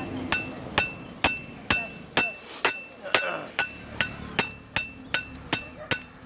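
Blacksmith's hand hammer striking steel on an anvil in a steady rhythm, a little over two blows a second, each blow leaving a bright metallic ring.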